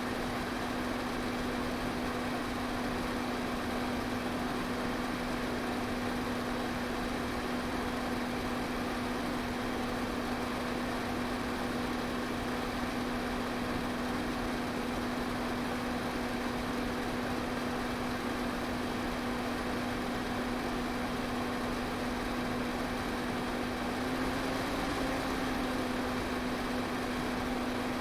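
Electric fan running steadily: an even rush of moving air over a constant motor hum, which wavers slightly about three-quarters of the way through.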